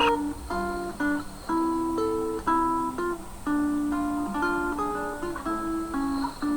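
Acoustic guitar (violão) picking a slow, even melody of single plucked notes, about two notes a second.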